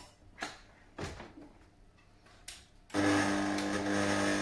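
A few knocks as the whisk attachment is fitted onto a stand mixer, then about three seconds in the mixer's motor switches on with a steady hum, starting to beat the eggs.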